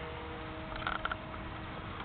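Faint steady whine of the 8-gram electric motor and propeller of a lightweight foam-board RC plane flying at a distance, over a rustling noisy background. A short burst of higher sound comes about a second in.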